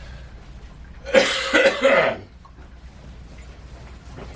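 Three quick coughs in a row, about a second in.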